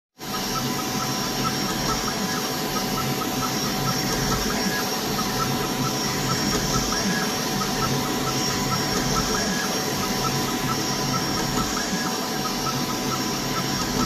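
Creality K1 3D printer printing at high speed in a 600 mm/s test: a steady whir of fans and stepper motors with several high whines, and a run of quick ticks as the print head darts back and forth.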